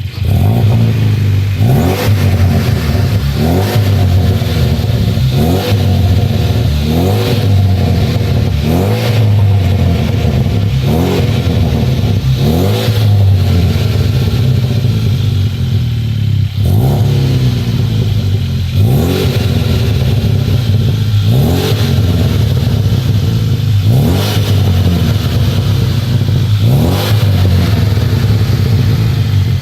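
Holden VT Commodore engine through a custom 3-inch exhaust, revved in repeated short blips, each a rising sweep dropping back to idle every second or two. The loud exhaust note carries a huge exhaust leak.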